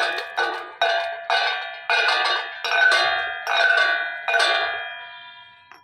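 Chipping hammer striking a welded steel test plate about twice a second to knock slag off the vertical weld bead, each strike leaving the plate ringing; the last strike rings out and fades near the end.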